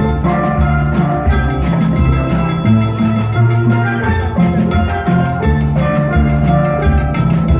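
Steel drum band playing live: many steel pans struck with mallets, ringing melody notes over low bass notes, with a quick steady beat.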